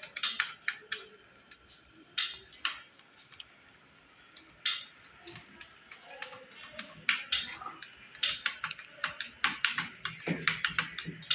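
Computer keyboard keys being pressed in irregular runs of sharp clicks, coming faster and closer together in the second half, as the keys navigate a BIOS setup menu.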